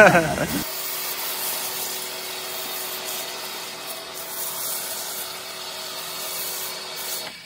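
Pressure washer spraying a foam-covered motorcycle: a steady hiss of spray with a faint steady hum underneath. It cuts off abruptly near the end.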